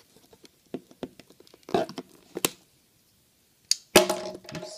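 Handling noise from opening a sealed box of trading cards: scattered clicks and small rustles of the cardboard box and its plastic wrap, with a sharp click about two and a half seconds in and a louder rustle near the end.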